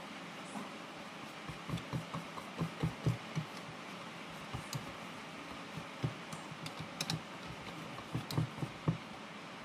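Wire balloon whisk beating a thin flour batter in a plastic bowl: irregular clicking and dull tapping as the wires knock against the bowl, in several bunches with short pauses between.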